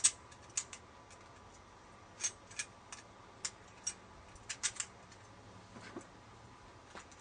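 Small metal parts of a TV aerial's mounting bracket clicking and clinking as they are handled and taken apart: a dozen or so sharp, irregular clicks, the loudest right at the start.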